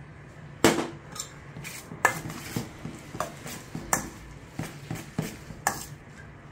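Metal fork clinking and scraping against a stainless steel mixing bowl as noodles are tossed: about ten sharp clinks, roughly two a second. The loudest is a single knock about half a second in. A steady low hum runs underneath.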